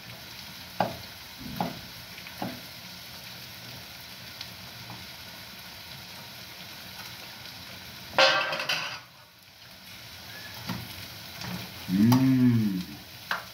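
Sliced sausage sizzling steadily in a frying pan on a gas stove, with a few sharp knocks in the first couple of seconds. A louder hiss flares for about a second partway through, and a short low hum comes near the end.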